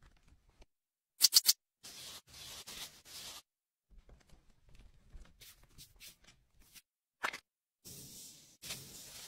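Makeup-application sound effects for a sponge and a powder puff: three sharp clicks about a second in, then a few short hissing swishes. Faint tapping follows, then another click, and two more swishes near the end.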